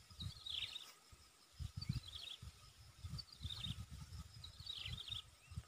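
A bird calling in the open, a short falling chirpy phrase repeated about four times, over a faint low rumble.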